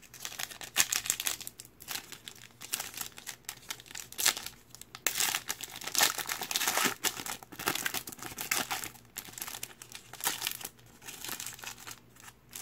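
Foil wrapper of a Mosaic basketball trading-card pack crinkling and tearing as it is pulled open by hand: a dense run of irregular crackles.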